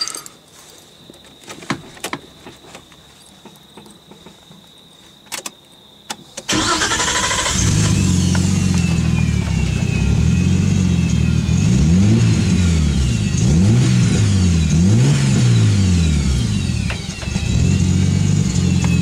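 Nissan Skyline HR31's straight-six engine: a few clicks, then the engine catches suddenly about six and a half seconds in and runs. Its revs are blipped up and down several times in the middle before it settles back toward idle.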